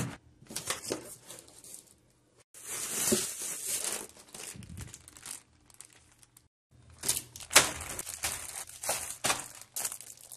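Clear plastic bags and bubble wrap crinkling and rustling as a package is unpacked by hand, in short bursts broken by brief silences, with sharp crackles near the end. A single loud thump right at the start.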